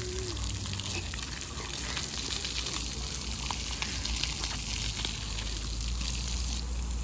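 Splash pad ground jets spraying water that splatters on the wet pavement, a steady hiss.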